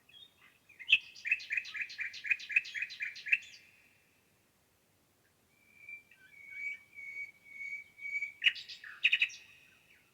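Wild songbird singing: a fast run of about nine quick repeated notes, then after a pause a phrase of longer, steadier notes that ends in a few sharp calls.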